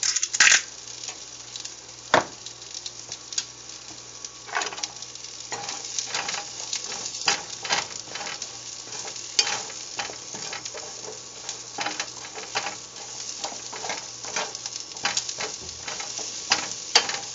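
Asparagus sizzling in a hot, oiled nonstick frying pan over high heat, with a spatula scraping and knocking against the pan as the pieces are stirred. There is a sharp knock about two seconds in.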